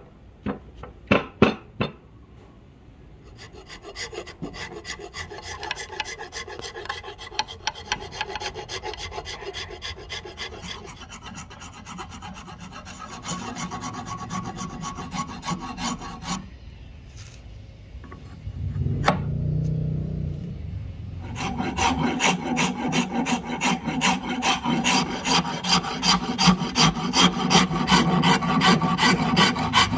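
Flat steel hand file stroking back and forth across a black and white ebony axe handle with a steady scraping rasp. The strokes grow louder and denser in the last third. A few sharp knocks come about a second in, and a short low rumble with a single click comes about two-thirds of the way through.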